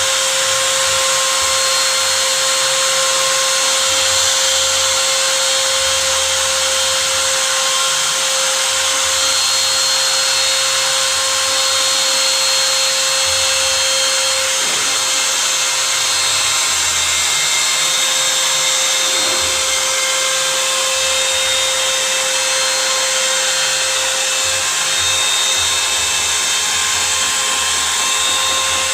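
CNC router spindle running steadily during a 3D carving job, with a constant high whine over the hiss of the bit cutting.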